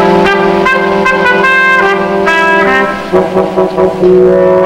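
Dramatic orchestral score: brass plays a run of short notes over held low chords, briefly thinning out about three seconds in.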